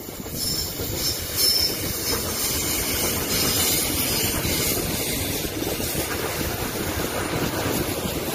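Korail Line 1 electric commuter train running past at close range, its wheels rumbling steadily on the rails with a high hiss and short bursts of wheel squeal in the first couple of seconds.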